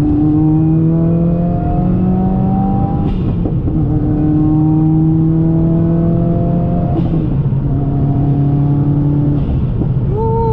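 Turbocharged Subaru WRX flat-four engine accelerating steadily through the gears. Its note climbs in each gear and drops at three upshifts, each with a brief turbo hiss.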